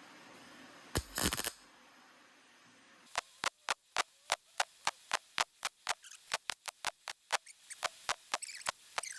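A hand ratchet being worked: a long run of sharp clicks, about three or four a second, that starts about three seconds in and gets a little quicker near the end. A single louder clatter comes about a second in.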